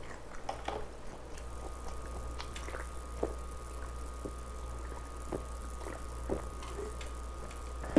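A person drinking beer from a can, with a series of soft gulping swallows about every half second to a second.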